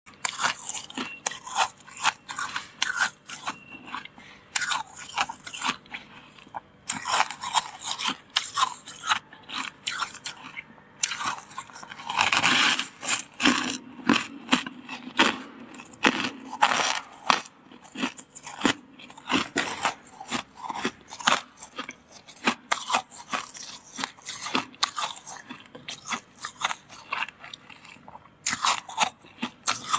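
Freezer frost being bitten and chewed: a fast, irregular run of crisp crunches, with a longer, louder crunch about twelve seconds in.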